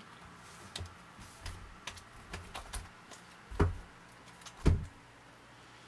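Hands with long acrylic nails handling cards on a wooden table: light clicks and taps, with two louder knocks about three and a half and four and a half seconds in.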